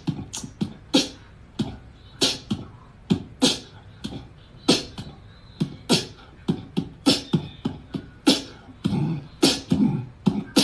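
A string of short, sharp percussive clicks and pops, irregular and about two a second, coming faster and fuller near the end.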